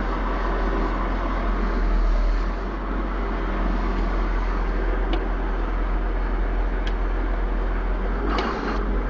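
Case 450 tractor's diesel engine running steadily as the tractor creeps forward, heard from inside the cab, with a few faint clicks.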